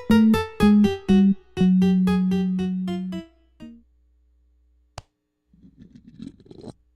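Electric piano music of short repeated notes over a low held note, stopping about three seconds in. A sharp click follows about five seconds in, then a faint scratchy noise near the end.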